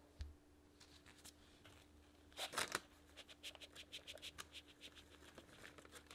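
Crumble topping pattering softly in small clumps onto sliced apples and parchment as it is tipped out of a bowl, a quick run of small ticks. There is a brief louder rustle about two and a half seconds in.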